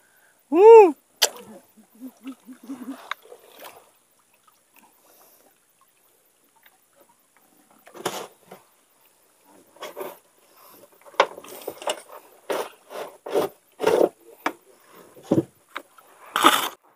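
Irregular splashing and knocking of water against a small fishing boat, coming thick and uneven in the second half. A brief rising-and-falling voice-like cry sounds just under a second in.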